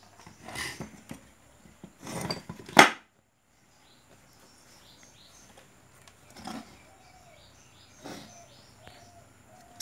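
Metallic clatter and knocks from handling a car audio amplifier's metal case, the loudest a sharp knock about three seconds in, after which the sound cuts out briefly. Then quieter handling rustles, with birds chirping faintly in the background.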